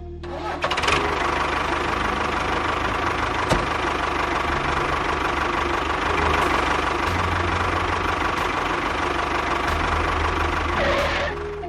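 A small motor-driven DIY mini construction machine running steadily, with a rattly mechanical noise and a faint steady whine. It starts under a second in and stops shortly before the end.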